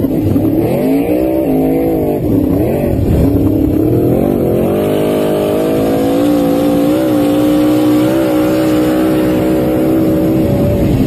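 Engines of a 1971 GMC pickup and a Ford Mustang in a street drag race, run hard: the pitch climbs and dips several times in the first few seconds, then holds steady and high at full throttle, tailing off near the end.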